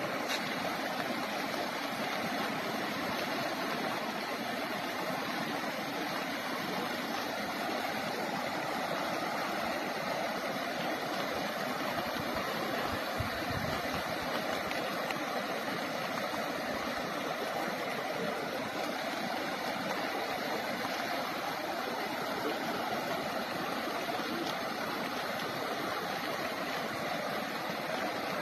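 Steady rushing of the River Ravi's floodwater, a continuous even wash of sound.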